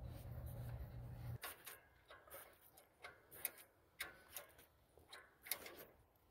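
Faint irregular clicks and scrapes of a hand turning a spin-on filter on a tractor, a few clicks a second. Before them, a low steady hum stops abruptly about a second and a half in.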